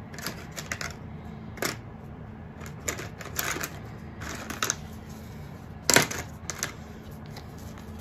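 Small plastic paint cup and plastic stir stick handled by gloved hands, making a series of irregular light clicks and taps. The sharpest click comes about six seconds in.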